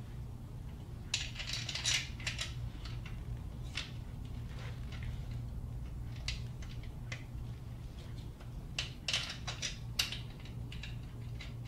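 Scattered clicks and metallic clinks of hand tools and bolts as the upper timing chain guide and tensioner bolts are fitted on a 4.7L V8, coming in short clusters, over a steady low hum.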